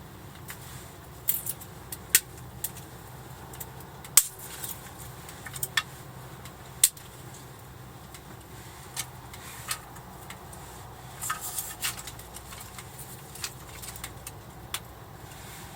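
Small hard objects being handled: irregular light clicks and clinks, loudest about four and seven seconds in, over a faint steady low hum.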